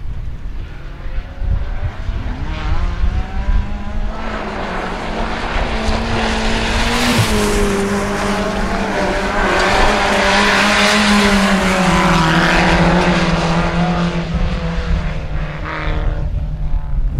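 Engines of 1400cc-class rallycross cars running at high revs as they race past. Their note climbs, drops in steps a couple of times and swells toward the middle, then fades near the end, over a low rumble of wind on the microphone.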